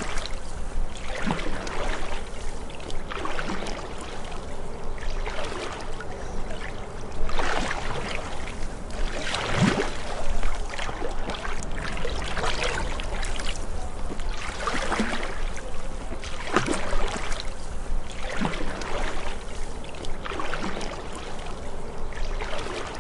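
Canoe paddle strokes dipping and pulling through calm lake water, a soft splash and trickle about every two seconds.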